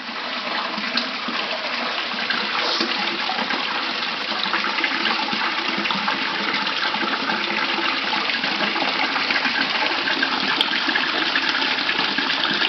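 Water running steadily into a koi pond, a continuous rushing noise.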